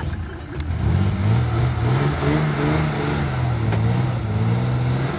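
Off-road 4x4 vehicle's engine revving: the pitch rises about a second in, then holds with small rises and dips in revs.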